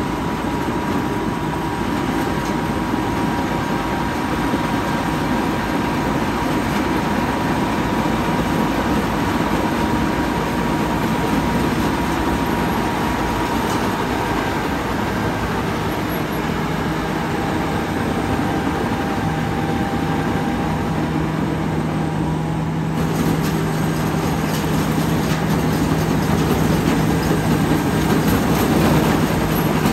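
Somboon Pattana combine harvester running steadily, its Hino diesel engine and machinery making a loud, continuous mechanical noise.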